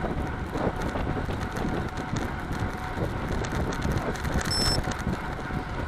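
Wind rushing over the microphone of a road bike's handlebar camera at about 42 km/h, with road noise from the tyres. A brief high beep sounds about four and a half seconds in.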